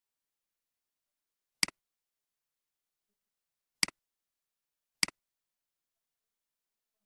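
Three sharp computer mouse clicks, the first about one and a half seconds in and the last two about a second apart.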